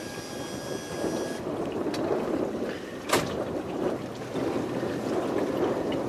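Steady low rumble of a safari boat on the river, with a thin high whine over the first second and a half and a single sharp click about three seconds in.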